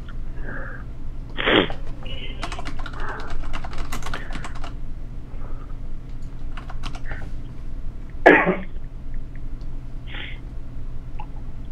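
Typing on a computer keyboard: a quick run of keystrokes a few seconds in, with scattered clicks after it. Two short nose or throat noises from a person with a cold come about a second and a half in and near eight seconds, the second the loudest sound.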